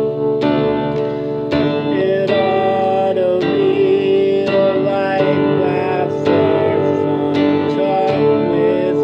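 Guitar music: chords struck about once or twice a second, with a wavering melody line above them.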